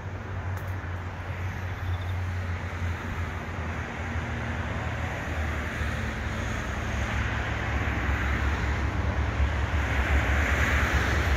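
Low diesel rumble of the approaching C-class locomotives C504 and C507, not yet in sight, growing steadily louder, with wind in the trees over it.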